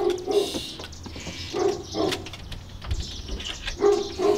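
A large dog barking, in pairs of barks about two seconds apart, six barks in all.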